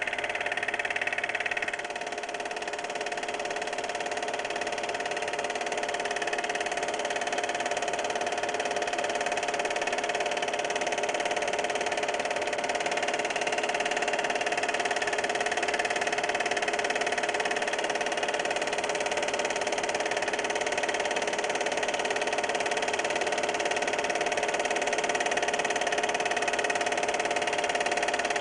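Steady mechanical whirr and hum of a running motor, continuous and even throughout, with a slight change in tone about two seconds in.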